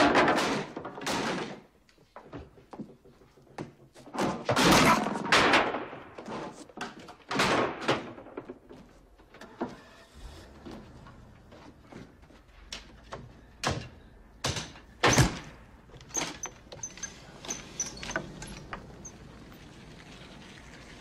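Repeated thuds and knocks of wood being struck and things being moved about in an attic, with quieter shuffling and rustling between them. The loudest bangs come at the start and about five seconds in, and the noises thin out to a low steady background in the second half.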